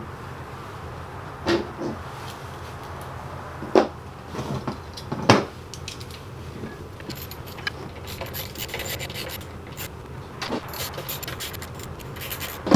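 Plastic cover and housing of a BMW X5 door-mirror motor unit being handled and pried open: a few sharp knocks in the first half, then a run of quick clicks and scraping in the second half.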